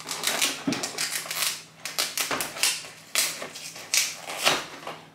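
Cardboard box flap being torn open by hand: a series of short tearing and crackling noises.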